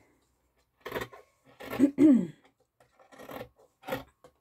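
Fabric scissors cutting through a quilt's edge of binding, cotton layers and wadding, about four rasping snips roughly a second apart, the loudest just before the middle.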